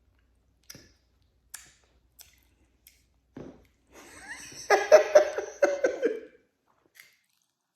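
A few faint clicks, then a burst of laughter about four seconds in that lasts about two seconds.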